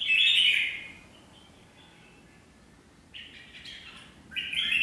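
Red-whiskered bulbuls calling: a loud burst of chattering calls at the start, a quiet stretch, then more calls from about three seconds in that grow louder near the end.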